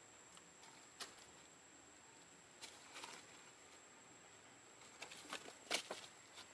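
Quiet, with a few faint scuffs and rustles, thickest near the end, as monkeys move over stone, dirt and dry leaves. A faint steady high-pitched tone lies underneath.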